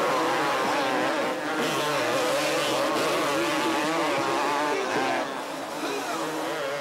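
Several two-stroke motocross bikes racing together, their engines revving up and down as the throttles open and close. It gets a little quieter about five seconds in.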